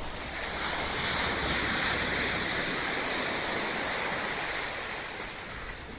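Ocean wave breaking and washing in on the shore: a hiss that swells over a second or so, holds, then slowly fades.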